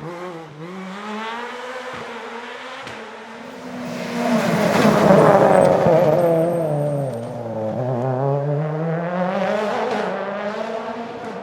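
Rally car engine revving hard past on a stage, its pitch dropping and climbing again with each lift and gear change. It is loudest about five seconds in as the car goes by, then rises once more near the end as it pulls away.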